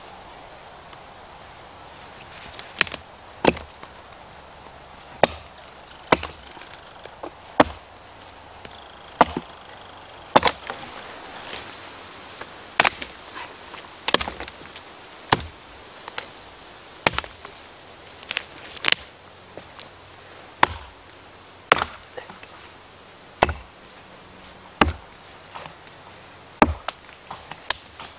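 Axe chopping wood: a steady series of sharp single strikes, roughly one every second or so, starting a couple of seconds in.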